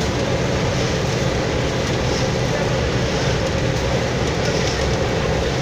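Mobile asphalt drum-mix plant running: a steady, loud, unchanging mechanical din from its smoking, fired drum and drive machinery.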